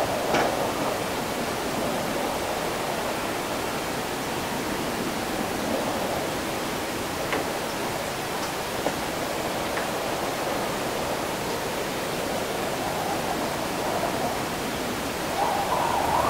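Steady rushing ambience of a city after rain, an even wash of noise with a few faint ticks, swelling louder near the end.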